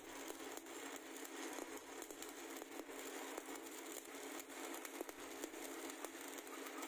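Stick (SMAW) welding arc burning steadily on a 10-inch pipe flange: a continuous crackling sizzle with frequent small pops as the electrode burns off.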